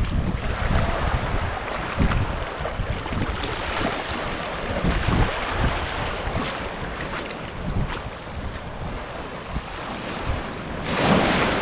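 Small surf waves washing up on a sand and gravel beach, with wind buffeting the microphone in low gusts. Near the end a wave breaks and rushes up the shore, louder than the rest.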